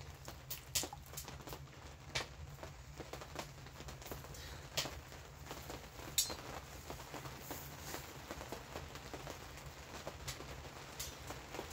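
Irregular wet clicks, pops and drips as a hot, soaked cloth poultice is squeezed and wrung out over a steel cup, over a steady low hum.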